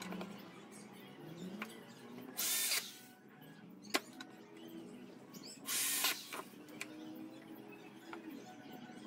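Corded electric drill run into wooden slats in two short bursts, one about two and a half seconds in and one about six seconds in, with a single sharp click between them.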